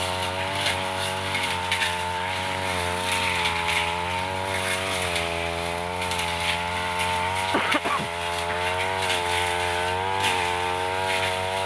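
Petrol backpack brush cutter running at high speed, its engine note dipping and rising again and again as the cutting head bites into grass and weeds.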